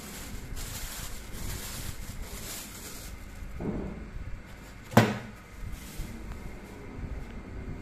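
Plastic wrapping rustling as it is pulled off a boxed fluorescence microscope attachment, then a single sharp knock about five seconds in as the unit is handled in its styrofoam packing tray.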